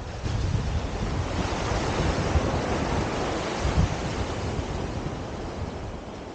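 Ocean surf breaking and washing up the beach, with wind buffeting the microphone in low gusts. The wash swells about two to three seconds in and eases off toward the end.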